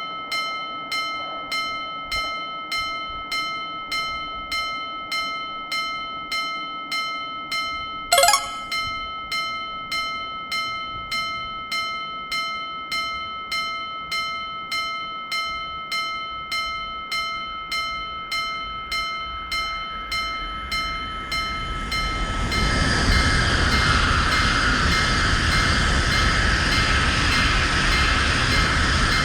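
Japanese-style railroad crossing warning bell ringing evenly, about one and a half strokes a second. A short, loud horn blast sounds about eight seconds in. From about twenty seconds a train approaches and rushes past, its noise building and then drowning the bell.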